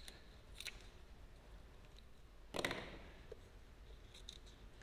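Paper backing of a vinyl wrap decal being cut away: light clicks and handling, then one short, sharp crackle about two and a half seconds in.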